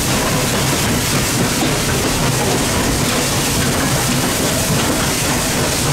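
Steam train in motion behind Pennsylvania Railroad 0-6-0 steam locomotive 643, heard from the car right behind the tender: a steady rumble and rattle of wheels on the rails.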